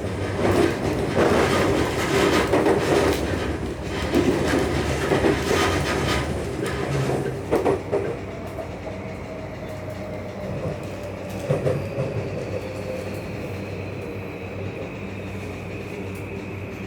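Tokyu 3020 series electric train running, heard from inside the car: wheel knocks and running noise for the first half, then a quieter whine that falls steadily in pitch as the train slows for its station stop.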